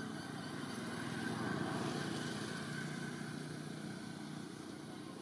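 A motor vehicle, likely a motorbike, passing by: its engine grows louder to a peak about two seconds in, then fades away.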